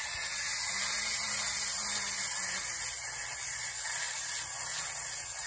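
Tin wind-up drummer soldier toy running on its clockwork, a steady hissing whirr with no distinct beat, cutting off suddenly near the end.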